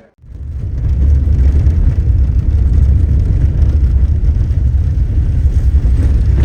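A car on the move: a loud, steady, low road-and-engine rumble that starts right after a brief silence at the beginning.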